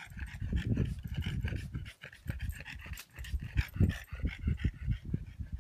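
A dog panting rapidly, close to the microphone, with irregular low thumps and rumble underneath.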